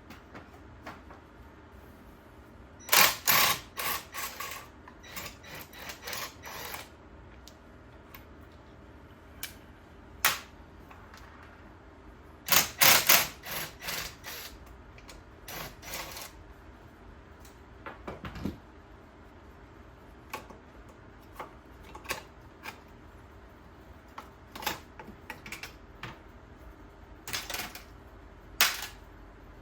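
Irregular sharp clicks and clatters of hand tools and parts being handled during repair work. They come in bursts with pauses, the loudest clusters about three and thirteen seconds in.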